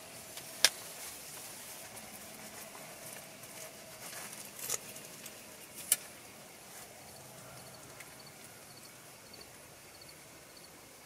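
Compound bow being handled through a quiet practice draw, arrow nocked: a few sharp clicks, the loudest a little under a second in and two more at about five and six seconds. A faint high chirping repeats through the second half.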